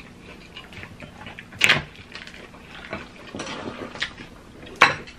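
Close-up eating sounds: chewing and small clicks, with two louder sharp knocks of cutlery against bowls, about a second and a half in and near the end.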